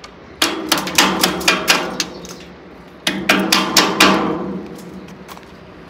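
An old metal vehicle number plate banged repeatedly against a steel footbridge railing. It makes two quick runs of ringing metallic clanks, about four or five a second, with the second run starting about three seconds in.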